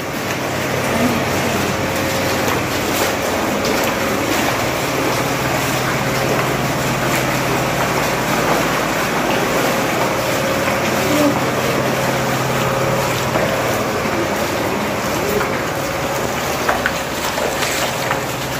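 Feet wading and splashing through ankle-deep floodwater on a hard floor, a steady sloshing wash, with a low mechanical hum underneath that stops about two-thirds of the way through.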